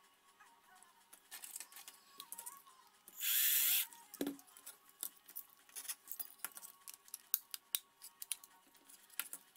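Small clicks and taps of plastic parts being handled, with a cordless drill running in one short burst of under a second about three seconds in, followed by a single knock. Faint background music underneath.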